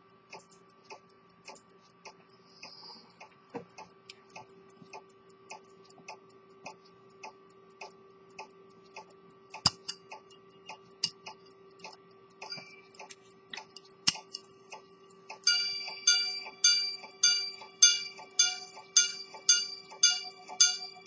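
Antique Swiss quarter-repeater pocket watch ticking steadily with its movement open, with a couple of sharp clicks from handling part way through. About fifteen seconds in, its repeater hammers begin striking the gong in an evenly spaced run of ringing chimes, much louder than the ticking.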